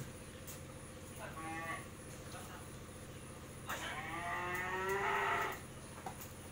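Cattle mooing: a short call about a second in, then a longer, louder moo of nearly two seconds starting about four seconds in.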